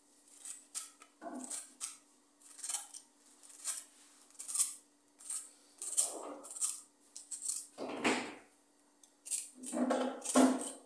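Kitchen knife slicing a hand-held wedge of raw cabbage into thin shreds: a run of crisp, irregular cutting strokes, about one or two a second, with one heavier stroke a little past the middle.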